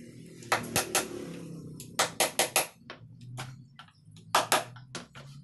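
Hand hammer striking the wooden frame of a console table: sharp knocks in quick groups, three, then four, then two.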